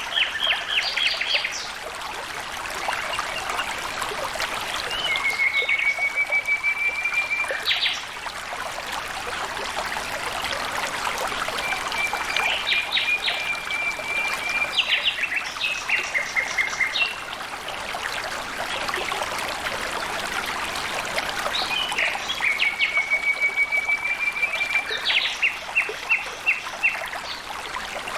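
Flowing water trickling steadily, with a bird singing three times over it. Each phrase is a level, rapid trill followed by a few short clipped notes.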